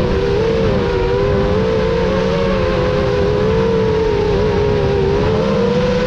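FPV quadcopter's brushless motors and propellers whining steadily, heard through the drone's onboard camera. Two close pitches waver up and down together as the throttle changes, over a low rushing noise.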